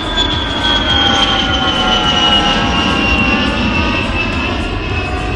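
Jet airliner engines running: a steady low rumble under a high whine that slowly falls in pitch.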